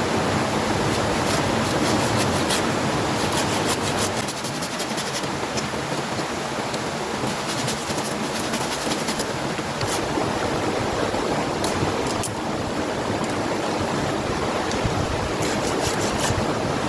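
Strong wind blowing outdoors, a steady loud rush with scattered faint crackles and rustles.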